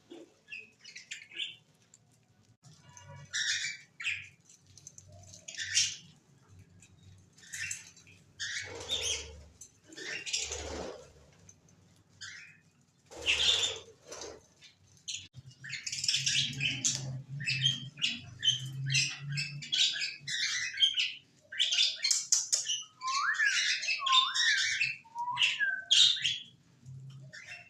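Aviary birds chirping and squawking in scattered bursts, building into dense, continuous chatter from about halfway through, with several quick falling whistled calls near the end.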